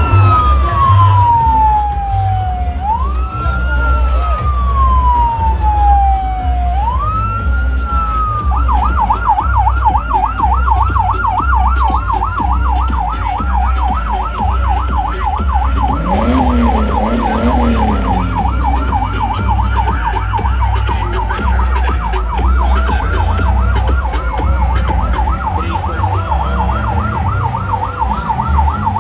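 Police vehicle siren sounding a slow wail, rising and falling about every three to four seconds, then switching to a fast, continuous yelp about eight seconds in. A pulsing deep bass beat runs underneath.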